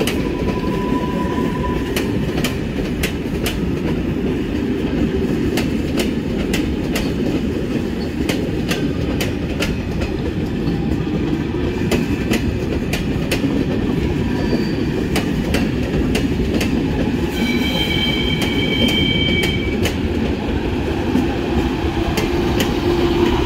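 Passing railway coaches, their wheels clicking over rail joints and points over a continuous rolling rumble. A high wheel squeal rings for about two seconds about three quarters of the way through.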